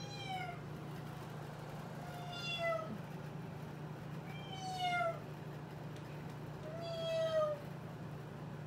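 Four meows, about two and a half seconds apart, each a short call that slides down in pitch at its end. A steady low hum runs underneath.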